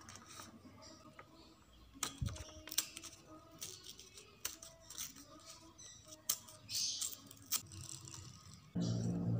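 Scattered light clicks and taps of paper cards and stickers being handled and laid down by hand, over faint background music that grows much louder near the end.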